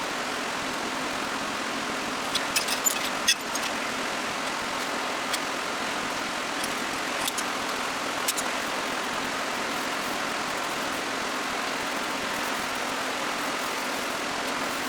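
Yamaha R7's 689 cc parallel-twin engine idling steadily through a Spark aftermarket exhaust with its silencer (dB killer) removed, not being revved. A few light clicks sound about two to three seconds in.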